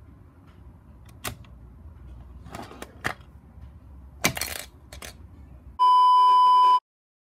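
Sharp plastic clicks and clatter from a Lego rubber band gun being fired and handled, the loudest rattle about four seconds in. Then a loud, steady test-pattern beep near 1 kHz for about a second that cuts off suddenly.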